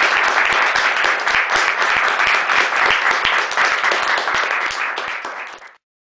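Audience applauding: a dense run of clapping that eases slightly toward the end and then cuts off abruptly.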